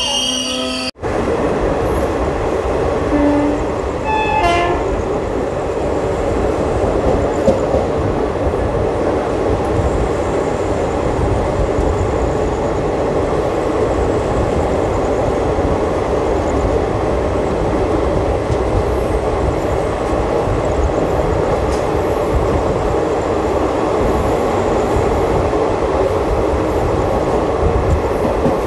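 Passenger train's wheels running on the rails, a steady loud rumble heard from an open coach doorway as the train gathers speed. The sound briefly cuts out about a second in.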